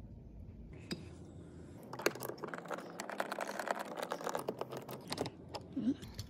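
Driver turning out the bolt inside the door-handle recess of a Toyota Land Cruiser 100 series door panel: a single click about a second in, then a run of rapid small clicks for about three seconds.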